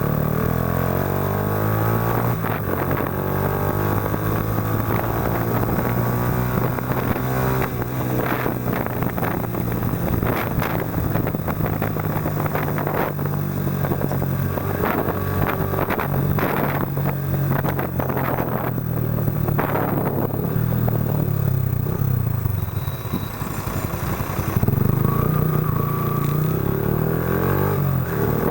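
Yamaha Factor 125's single-cylinder four-stroke engine running through a Roncar aluminium aftermarket exhaust while being ridden, its note rising and falling with the throttle. Short rushes of noise break through in the middle stretch, and the engine gets louder near the end.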